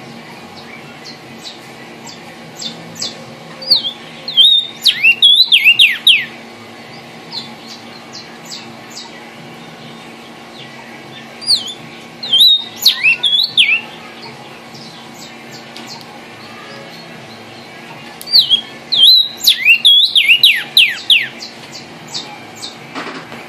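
Vermilion cardinal (cardenal guajiro) singing three loud song bouts of a few seconds each. Each bout is a rapid run of clear whistles sliding down in pitch, and short high chips are scattered between them.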